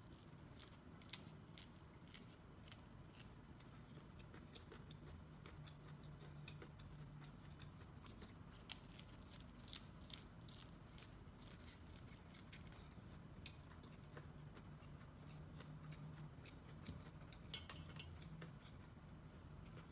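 Biting and chewing kernels off a cooked corn on the cob: faint, irregular small crisp clicks and crunches.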